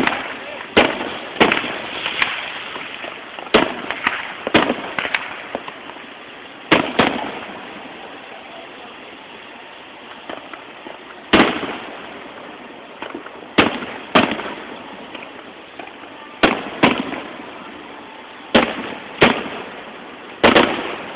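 Aerial fireworks shells bursting overhead in a string of sharp bangs, often two close together, each trailing off afterwards, with a lull of about four seconds near the middle.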